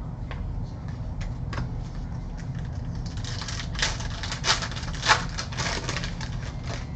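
Trading cards handled and flipped through by hand: scattered small clicks and rustles, turning into a quick run of card-on-card clicks in the second half, with the sharpest snap about five seconds in.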